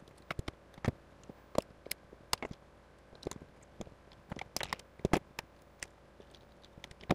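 Scattered light clicks and ticks, irregularly spaced, as a solid copper ground wire is bent by hand and worked against a steel electrical box and its grounding screw.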